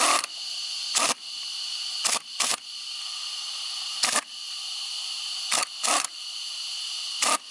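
About eight sharp, irregular clicks from the metal top mount, washers and new nut being fitted by hand onto a new rear shock absorber's shaft, over a steady hiss.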